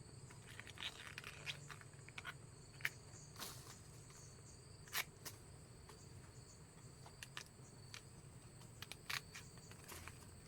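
Faint, steady high-pitched insect chirring, with scattered soft clicks and rustles.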